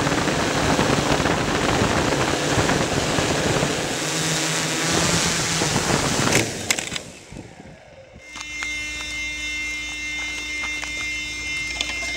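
Wind rush and propeller noise on a MikroKopter XL octocopter's onboard microphone as it flies low, with a motor whine showing through about four to six seconds in. About six and a half seconds in it sets down on gravel with a few knocks and the noise falls away; from about eight seconds a steady tone with light, regular ticking remains.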